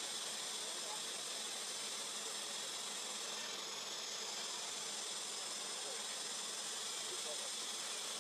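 Steady chorus of forest insects: a continuous, high-pitched buzzing drone in several layered bands, unchanging throughout.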